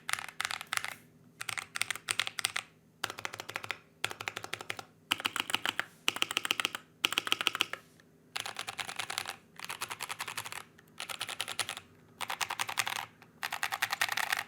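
Typing on a custom GMMK Pro mechanical keyboard with lubed and filmed C3 Kiwi tactile switches, a polycarbonate plate and Akko Neon keycaps. Keystrokes come fast in short runs with brief pauses between them, stopping near the end.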